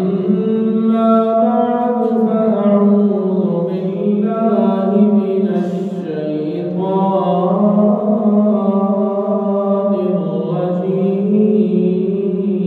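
One man's voice chanting a melodic Islamic recitation in long held notes that slowly rise and fall, with a brief break about six seconds in.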